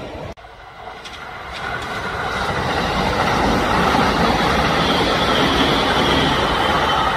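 A Kintetsu electric train passing. An abrupt cut just after the start is followed by a rising rush of train noise that grows over a couple of seconds to a loud, steady run of wheels on rails.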